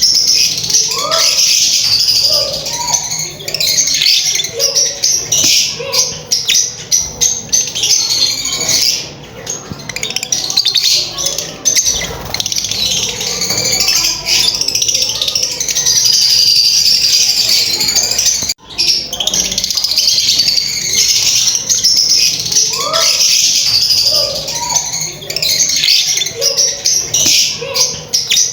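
Several lovebirds chattering, a dense, continuous stream of high chirps and squeaks.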